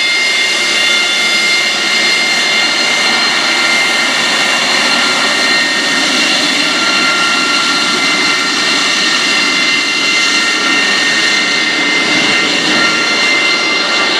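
AV-8B Harrier II's Pegasus turbofan running steadily at close range: a loud, unbroken jet roar with a strong high-pitched whine over it.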